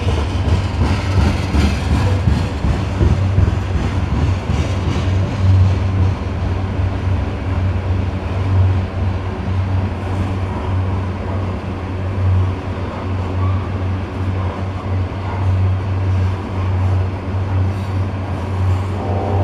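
Coal hopper cars of a freight train rolling past in a steady, continuous rumble of wheels on rail, with a few clicks early on. A set of steady, ringing tones comes in near the end.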